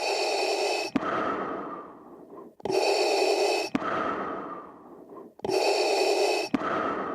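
Darth Vader's mechanical respirator breathing: a loud, hissing inhale about a second long followed by a longer, fading exhale, repeating about every three seconds.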